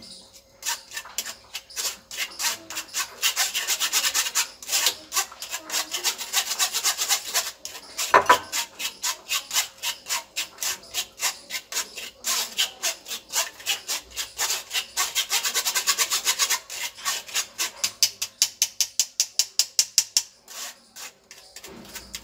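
A spoon scraping and rubbing wet green chutney paste of coriander and green chilli through a stainless steel mesh sieve in quick rasping strokes, several a second, to strain out the chilli water. One louder knock comes about eight seconds in.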